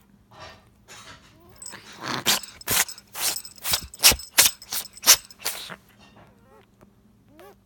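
A kitten sneezing in a quick run of about nine short, sharp sneezes over three to four seconds, followed by a few faint, rising squeaks.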